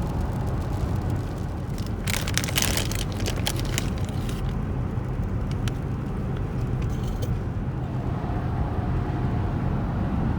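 Car on the road heard from inside the cabin: a steady low rumble of engine and tyres. About two seconds in there is a stretch of sharp crackling and clicking, lasting a couple of seconds, with a few more clicks after it.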